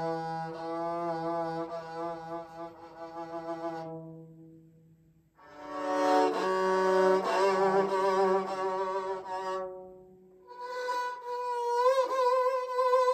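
A bowed string instrument playing slow, sustained notes in three phrases, each fading out before the next begins, about four seconds in and again about ten seconds in. The last phrase is a long held note that wavers in pitch near the end.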